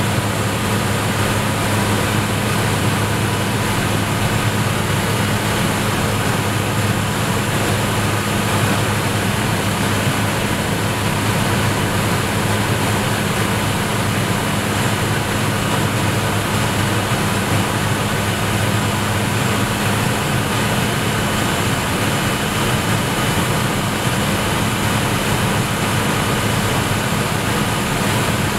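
Pilatus PC-6 Porter's turboprop engine and propeller heard from inside the cabin: a steady, unchanging drone with a low hum, as the aircraft descends towards the landing strip.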